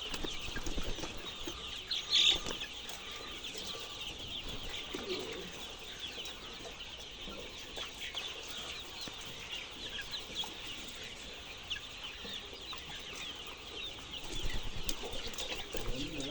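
A flock of young chicks peeping all at once, a dense stream of short high chirps. One louder call stands out about two seconds in.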